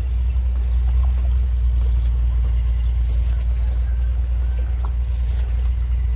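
Steady low rumble throughout, with a few brief high rustles as the cast net is handled.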